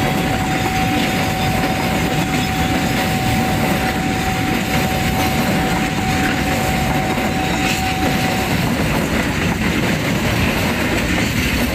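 Freight train of empty container flat wagons rolling steadily past on the rails, its last wagon going by near the end. A single steady tone sounds alongside until about eight and a half seconds in.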